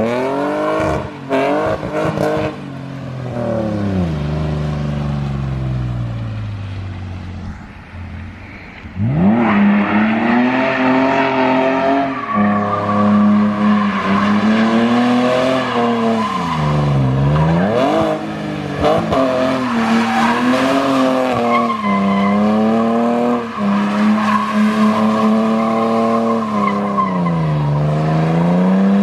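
BMW E46 engine revving hard while the car slides sideways with its rear tyres squealing. The revs climb briefly, then fall away and soften for several seconds. From about a third of the way in, the engine is held high with a continuous tyre squeal, and the revs dip and rise again three times.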